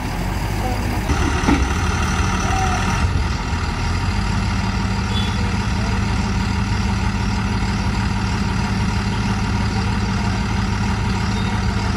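Tata 3718 tipper truck's diesel engine running at a steady idle, a low even hum.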